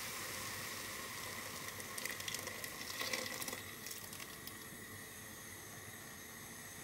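Blended raw tomato juice poured from a blender jug into a hot pot of wilted spinach, sizzling and bubbling, with a louder crackly stretch about two to three seconds in that then dies down.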